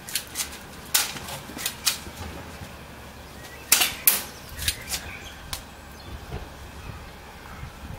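Spring-powered airsoft guns fired one shot at a time in an irregular exchange: about nine sharp snaps, the loudest two close together a little under four seconds in.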